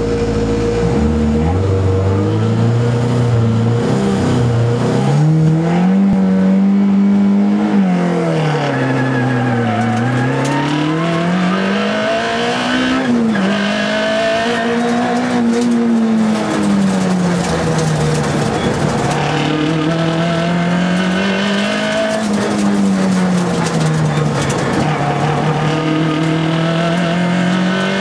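Škoda Felicia Kit Car's four-cylinder rally engine at racing pace, heard from inside the cockpit, with revs repeatedly climbing and dropping as it accelerates, shifts and slows for corners. A steady whine sounds over the engine for the first eight seconds or so.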